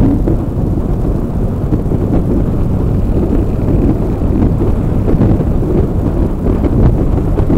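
Wind buffeting the microphone of a handlebar-mounted camera on a motorcycle at highway speed: a steady low rumble, with the Yamaha XT 350's single-cylinder four-stroke engine running under it.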